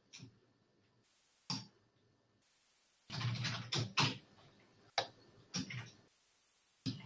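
Faint, irregular clicks and light knocks, about a dozen of them, bunched in a quick cluster around the middle.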